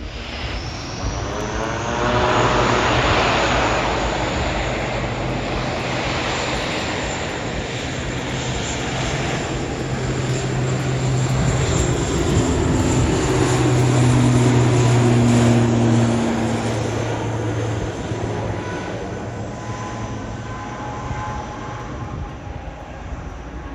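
Airliner's engine noise as the aircraft passes close by: a loud, dense rush that swells, holds with a steady low hum, then fades away.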